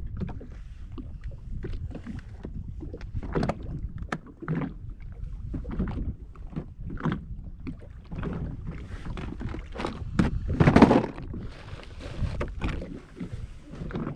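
Choppy water slapping and splashing against a jet ski's hull over a low steady rumble, with irregular knocks and one louder splash about ten seconds in.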